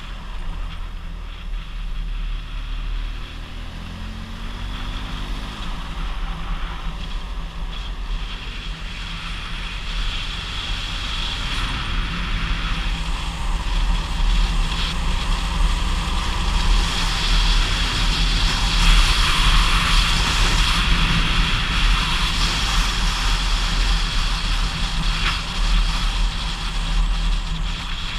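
Motorcycle engine running while riding up a mountain road, with wind rushing over the camera microphone; the sound grows gradually louder through the middle of the stretch.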